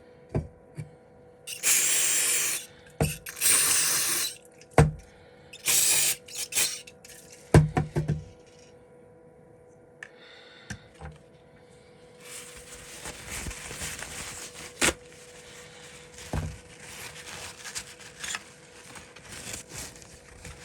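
Three loud hissing bursts of about a second each in the first six seconds, with sharp clicks and knocks between them. From about halfway a quieter steady hiss sets in, broken by more scattered clicks.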